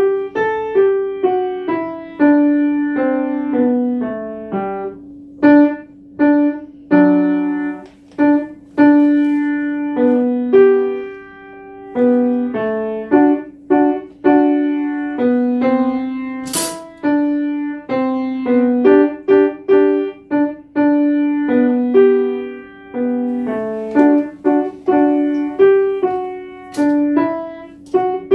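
Solo piano being played: a steady stream of struck notes and chords, each ringing and dying away, in a practice run-through of a competition piece. About two-thirds of the way through there is a brief sharp noise over the playing.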